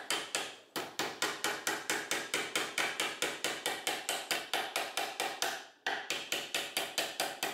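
Rapid, evenly spaced hammer-like taps, several a second, each with a short ringing tone, broken by two brief pauses.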